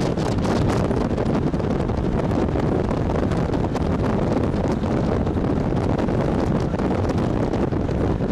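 Wind buffeting the microphone through an open side window of a moving minibus, over the vehicle's steady road and engine noise.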